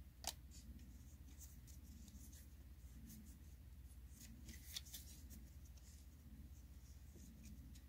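Faint handling of Pokémon trading cards: soft rustles and light ticks as the cards are slid and fanned in the hands, with a sharper tick about a third of a second in.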